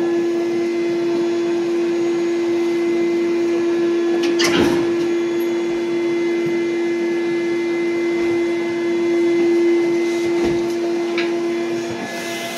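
A steady machine hum at one pitch, with a knock about four and a half seconds in and a duller thump about ten seconds in.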